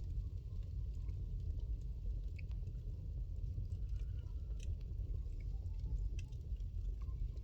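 Wood fire burning in a fireplace: a steady low rumble with scattered sharp crackles and pops from the burning logs.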